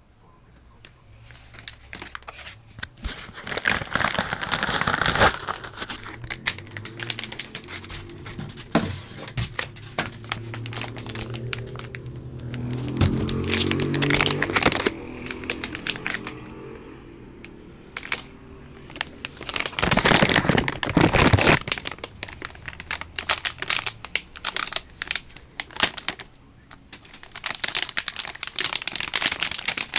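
Clear plastic packaging bags being handled and crinkled, in several loud flurries of crackling with quieter rustling between.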